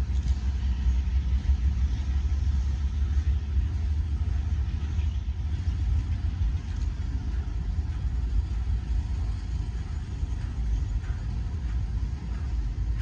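Cars of a Norfolk Southern work train rolling past, a steady low rumble, with a few faint clicks toward the end.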